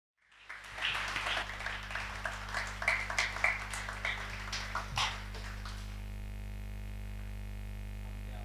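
Congregation clapping and cheering for about five seconds, dying away to a steady electrical mains hum from the sound system.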